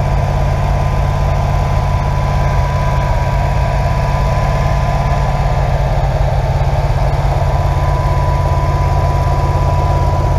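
Rebuilt Chevrolet small-block 350 V8 idling steadily on its first run after the rebuild. A thin, steady whine runs alongside the engine note.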